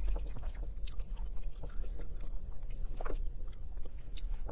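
A person chewing food close to the microphone, with a few short, sharp clicks and smacks scattered through.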